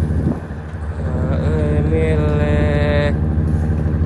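Boat's engine running with a steady low hum, with wind on the microphone. About a second in, a held, voice-like tone sounds over it for about two seconds, wavering at first, then steady, and cuts off sharply.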